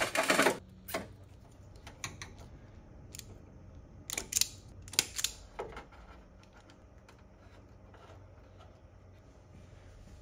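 Wire strippers clicking and snipping on thin hook-up wire, a handful of short sharp clicks a second or so apart, after a brief rustle of cable being handled at the start. A faint steady hum runs underneath.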